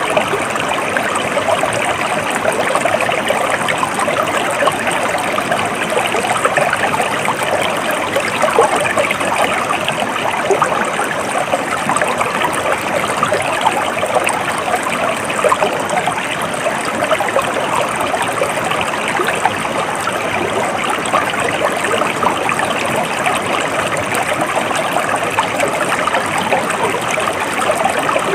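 Stream water flowing and trickling at a steady level.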